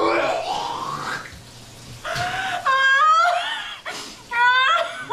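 A woman laughing hysterically: breathy, wheezing laughter with two high squealing bursts, one about three seconds in and one near the end.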